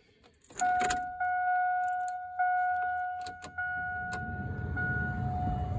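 Chevy Silverado's dash warning chime sounding as a steady tone that restrikes about every second, with a few sharp clicks. From about halfway, the cab's heater blower fan starts up with a low rush that grows stronger.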